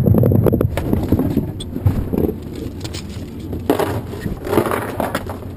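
Scraping and knocking handling noise against the camera, over a steady low rumble of boat motor and wind on the microphone.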